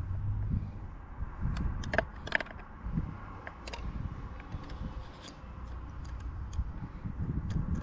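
Small metallic clicks and scrapes of a steel feeler gauge and screwdriver working in the breaker points of a Chrysler outboard, as the points gap is being adjusted. The clicks are irregular, with the sharpest two about two seconds in.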